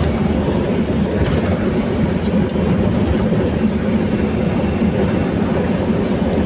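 Steady low rumble of a vehicle travelling along a road: engine, tyre and wind noise heard from the moving vehicle.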